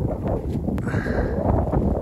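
Wind buffeting the microphone in a steady low rumble, with footsteps crunching through snow.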